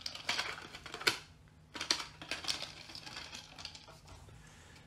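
Light clicking and rattling of 3D-printed plastic parts as the hinged panels of a model Saturn V lunar module enclosure are handled and folded open, in clusters of quick clicks that thin out toward the end.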